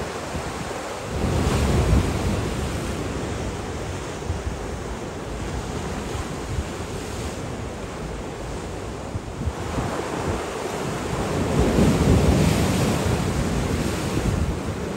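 Storm surf surging and breaking against a stone harbour sea wall, with wind buffeting the microphone. The surf swells loudest about two seconds in, and again for a few seconds near the end as a big wave breaks against the wall.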